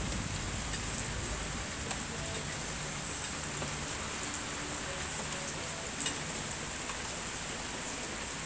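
Steady rain falling on a garden lawn and hedge, with scattered drops ticking close by and one sharper drop hit about six seconds in.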